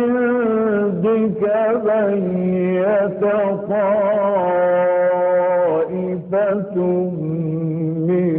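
A man reciting the Quran in the melodic mujawwad style, one voice drawing out long ornamented phrases with a wavering pitch. One note is held steady for over a second in the middle.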